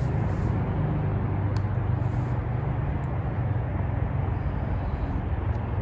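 Steady low rumble and hiss of outdoor background noise, with no distinct events.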